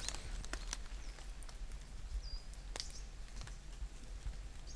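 Forest ambience: a few short, high bird chirps over scattered light ticks and crackles and a steady low rumble.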